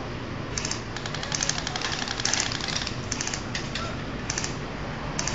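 Airsoft guns firing short full-auto bursts, each a rapid string of clicks under half a second long, about seven bursts one after another.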